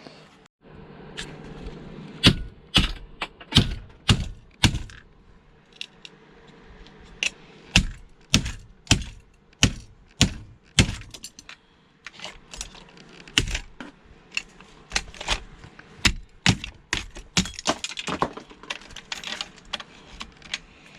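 Irregular sharp metal clicks and knocks of hand tools and loose parts against the metal body of an old sewing machine as it is taken apart.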